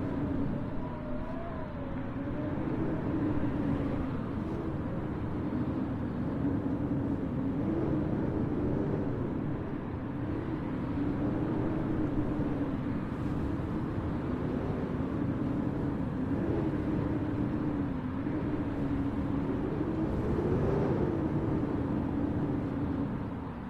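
Howling blizzard wind: a steady rush of wind noise with a low moaning tone that slowly wavers up and down in pitch.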